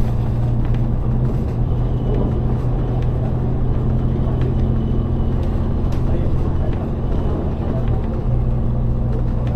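Public bus driving along a highway, heard from inside: a steady low engine drone with road rumble.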